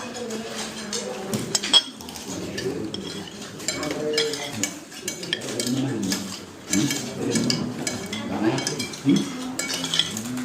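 Cutlery clinking and scraping on plates and dishes during a family meal, with frequent sharp clicks, over quiet background conversation.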